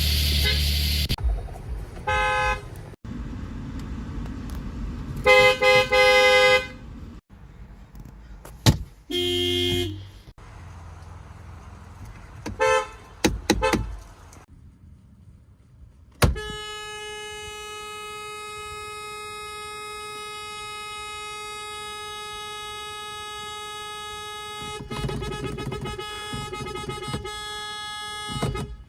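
Horns of several German cars sounding in turn: short honks and double toots of differing pitch over the first fourteen seconds. After a brief quiet, one horn is held down in a single long steady blast lasting about twelve seconds.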